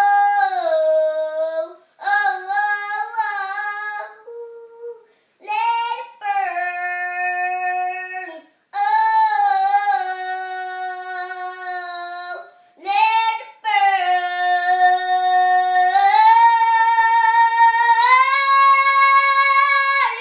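A young girl singing solo without accompaniment, in phrases of long held notes with breaths between them; the last phrase is held the longest and steps up in pitch.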